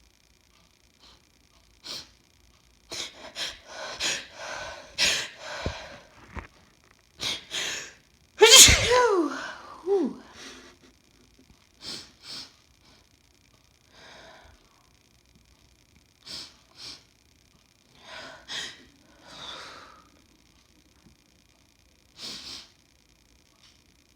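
A woman's sneeze fit set off by sniffing chhinkni sneezing powder: short sniffs and a run of catching in-breaths build up to one loud sneeze about eight seconds in, with a falling voiced tail. It is followed by scattered wet sniffs.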